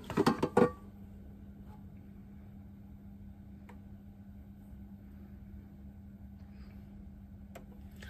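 A few quick knocks near the start, then an air fryer running with a steady low hum while it bakes cookies.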